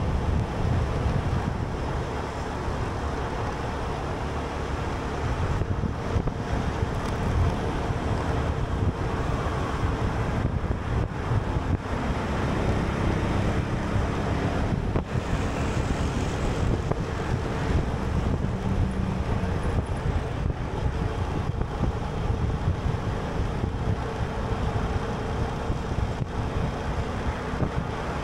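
Steady road noise of a vehicle in motion, with wind buffeting the microphone.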